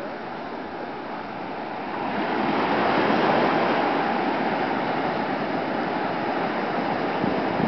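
Ocean surf breaking and washing up the shore, a steady rushing that swells louder about two seconds in as the waves break close by.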